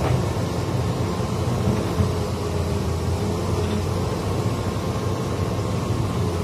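Hitachi hydraulic excavator's diesel engine running steadily under load as the boom and bucket work, with a light knock at the start and another about two seconds in.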